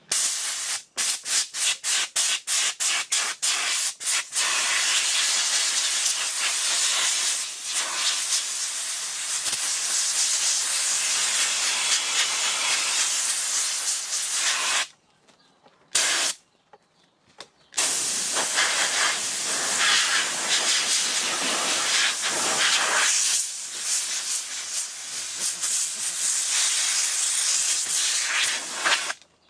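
Compressed-air blow gun blowing dust out of a car's engine air filter element from the clean side. It starts as a string of short quick blasts, then gives long steady hissing blasts, with a pause of a few seconds about halfway broken by one brief blast.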